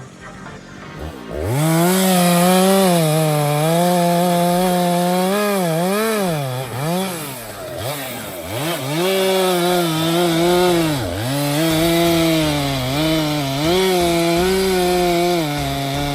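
Stihl MS462 two-stroke chainsaw cutting into a Douglas fir trunk. It comes up to full revs about a second in. Its pitch then sags and recovers again and again as the chain loads up in the wood.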